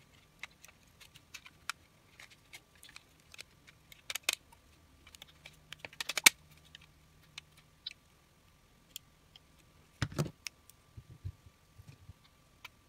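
Small plastic clicks and rattles as a radio transmitter's plastic shell and circuit board are handled and pulled apart, with louder clatters about four and six seconds in and a duller knock about ten seconds in.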